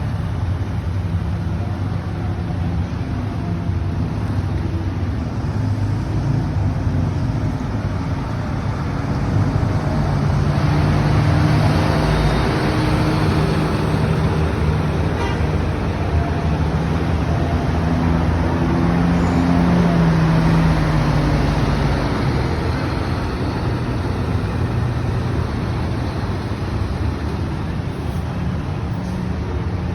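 Large buses driving past on a road, their engine drone swelling as each one passes, loudest about twelve and again about twenty seconds in, over steady traffic noise.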